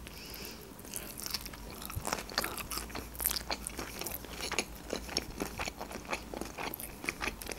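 A bite into a fresh rice-paper spring roll with shrimp and carrot, then chewing: many small, irregular wet clicks and crunches from the mouth.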